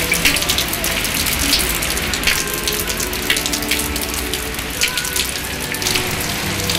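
Steady rain with many single drops splashing close by, each one a sharp tap over the hiss.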